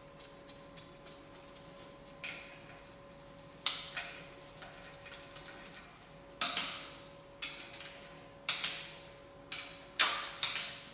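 Hand tools and bolts clinking and tapping against a water pump and engine block while the pump is bolted on: separate sharp metallic clicks with short ringing tails, sparse at first and coming about once a second toward the end.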